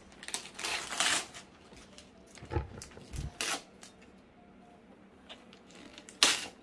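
Wrapping paper rustling and crackling in a few short bursts as a toddler handles a partly unwrapped gift box, with some knocks of the cardboard box between them; the loudest, sharpest crackle comes near the end.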